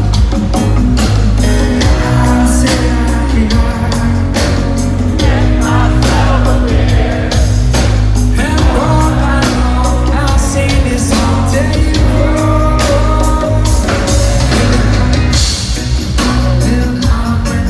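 Live reggae band playing, with a heavy bass line, drum kit, electric guitar and keyboards under a sung lead vocal.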